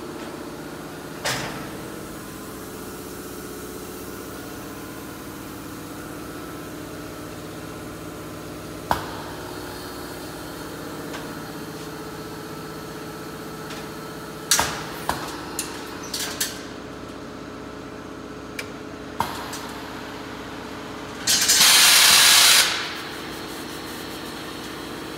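Thermoforming machine running with a steady hum, giving several sharp clanks and clicks as its clamp frame and platens cycle. About three-quarters of the way through comes the loudest sound, a hiss of air lasting about a second and a half.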